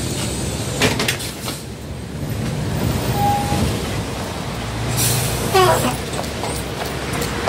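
City bus engine idling at a stop over road rumble, with a few knocks about a second in and a short sharp hiss of air about five seconds in.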